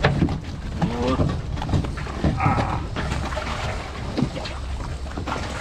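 A person's short wordless vocal sounds, a few brief rising and falling calls, over a steady low hum.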